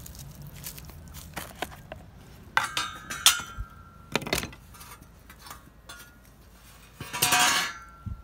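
Filled glass jars clinking and knocking against one another as they are set upside down in a plastic crate: a few sharp clinks with a brief ringing note about a third of the way in, a single knock, and a longer rattle of jars near the end.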